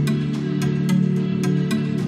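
Music with a steady beat over sustained tones.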